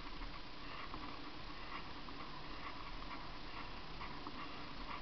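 Bicycle rolling along pavement, picked up by a camera riding on the bike: a steady rolling noise with light, irregular ticking.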